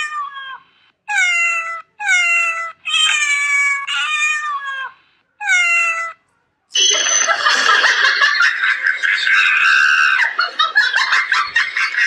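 About six cat meows in a row, each short with a similar falling shape, played as recordings by a cat-translator app on a phone. From about seven seconds in, a denser, noisier mix of sound takes over.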